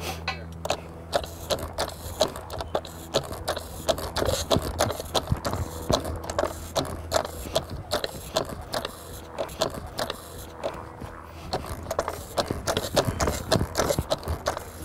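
Aluminum hydraulic trench shore being pumped out: irregular clicking, knocking and metal scraping from the pump and the installation tool working against the shore, several clicks a second, over a steady low hum.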